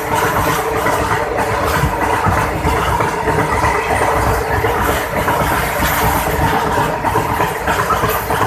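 Train running slowly on the track: a steady rumble with a steady hum over it.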